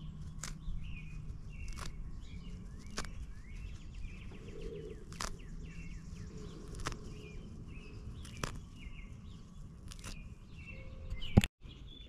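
Cedar bark and small twigs crackling and snapping as they are broken up by hand for tinder, a sharp snap every second or so, the loudest near the end. Birds chirp in the background.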